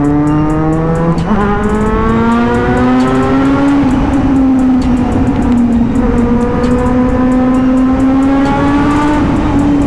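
Kawasaki Z900's inline-four engine pulling under acceleration while riding. Its pitch climbs, drops with an upshift about a second in, then climbs again more slowly, with another small drop near the end.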